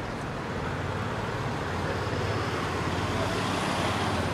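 Steady low vehicle hum over street traffic noise, growing slightly louder toward the end.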